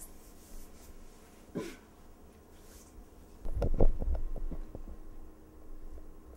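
Cloth rubbing against the microphone, then a loud burst of knocks and rattling about three and a half seconds in that dies away over a second or so.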